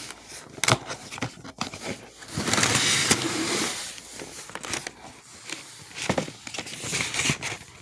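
Cardboard Nike shoebox being handled and opened: several knocks and taps, and a scraping rush about two and a half seconds in that lasts about a second, as the lid comes off.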